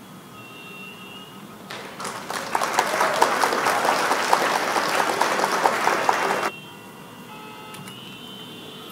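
Applause sound effect: many hands clapping, swelling in about two seconds in, holding for about four seconds and cutting off suddenly. It marks the revealing of the correct answer.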